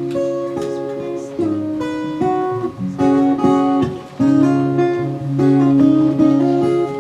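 Acoustic guitar playing a fingerpicked chord introduction, a new chord or bass note every second or so.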